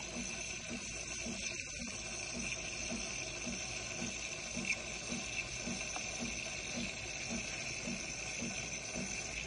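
DeLonghi PrimaDonna Elite coffee machine frothing milk and dispensing it through its milk carafe spout: a steady hiss with a soft low pulsing about twice a second.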